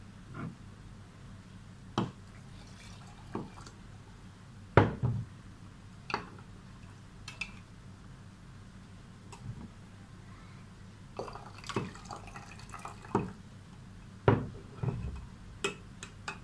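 Hot water poured into a glass jar of jelly powder, then a metal spoon stirring and clinking against the glass: scattered sharp taps and knocks.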